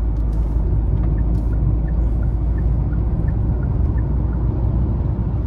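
Steady low engine and road rumble inside the cabin of a 2016 Kia Optima. The pedal is floored but the car only creeps up in speed, held back by limp mode after running low on oil. From about a second in, the turn signal ticks and tocks in a steady rhythm for a few seconds, then stops.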